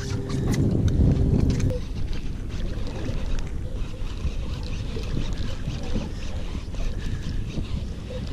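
Steady motor hum with several held tones that cuts off suddenly about two seconds in. Underneath and after it, wind and water noise on the boat, with a few faint clicks from a baitcasting reel being handled.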